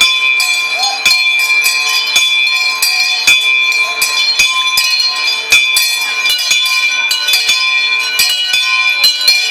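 Many bells rung together as fast as possible: a continuous jangle of overlapping, irregular strikes over sustained ringing tones.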